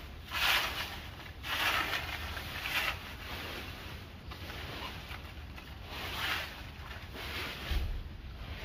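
Dead leaves being swept across the ground in irregular scraping strokes, the strongest in the first three seconds.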